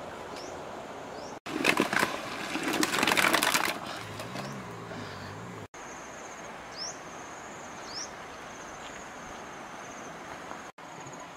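A loud rustling, crackling noise lasting about two seconds, then a brief low wavering hum. After that comes a steady high trill with a few short rising chirps from birds in the treetops.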